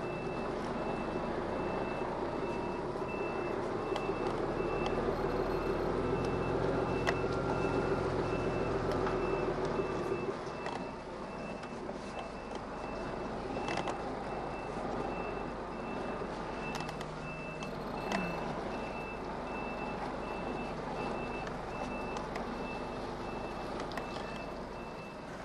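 An HGV's reversing alarm beeping in a steady, evenly spaced series while the lorry backs its trailer into a parking bay. Underneath, the truck's diesel engine is running under load, heavier for the first ten seconds or so and then settling lower.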